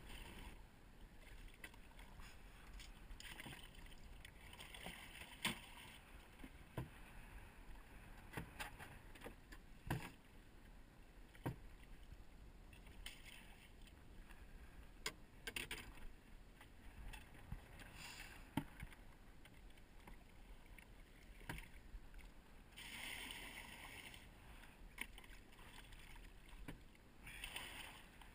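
Faint wind and water sounds around a small open boat, with scattered sharp knocks and clicks as gear and the landing net are handled in the hull.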